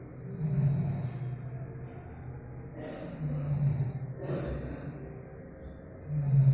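A sleeping person snoring: three low, rattling snores about three seconds apart, with breathy rushes of air between them.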